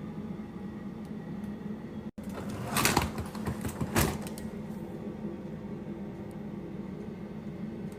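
Steady low hum with a couple of short clatters and rustles, about three and four seconds in, as of containers and packaging being handled while stocking a refrigerator.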